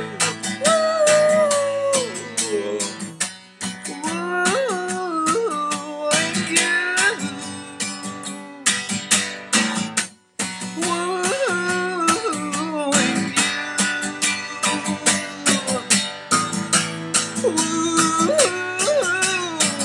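Acoustic guitar strummed steadily while a man sings long sliding notes over it, with a brief pause about ten seconds in.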